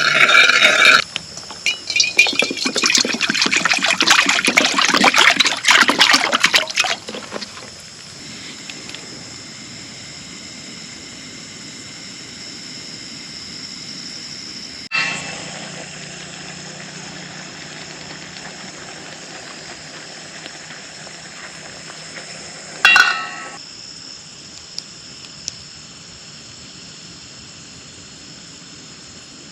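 Rain pattering hard on a tent for about the first seven seconds, then quieter steady rainfall with a high, steady insect chirring and a brief pitched call about three-quarters of the way through.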